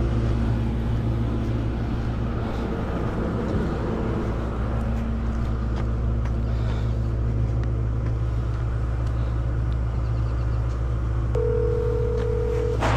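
Vehicle engine idling with a steady low rumble. Near the end a single phone ringing tone sounds for about a second and a half as a call is placed.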